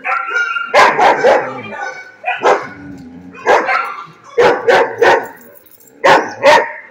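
A young dog barking repeatedly: about ten sharp barks in short runs of two or three.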